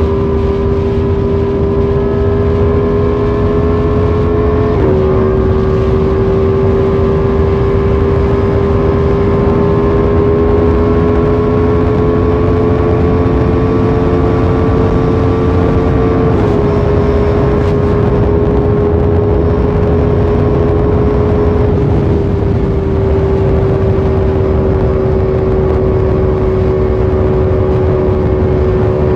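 Motorcycle engine running at steady high revs on the move. Its pitch climbs slowly and dips three times, about five, sixteen and twenty-two seconds in, over a steady low rushing noise.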